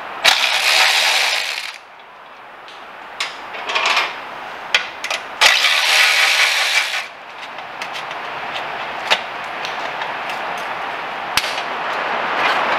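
Aerosol spray can hissing in two long bursts, each about a second and a half, aimed at the motorcycle exhaust pipes near the flange nuts. Light metallic clicks and clinks come in between.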